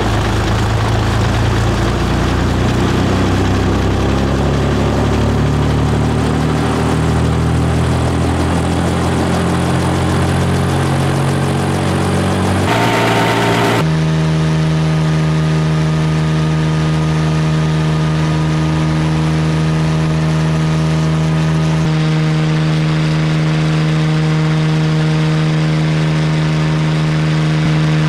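Bell 47 helicopter's piston engine and rotor spooling up, the pitch rising steadily for about twelve seconds. After a brief break, a steady engine and rotor drone is heard from inside the open bubble cockpit.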